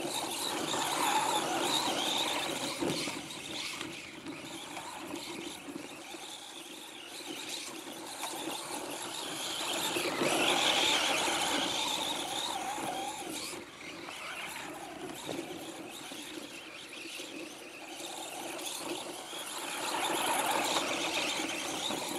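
Traxxas Slash 4x4 RC truck's electric motor and gears whining, rising and falling in pitch with the throttle as it laps on snow, and growing louder three times as it comes nearest. The drivetrain runs on a freshly replaced main bearing, pinion and spur gear and sounds a lot better.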